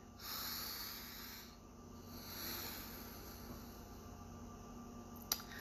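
A slow deep breath close to the microphone: drawn in for about a second and a half, then let out. A short click comes near the end.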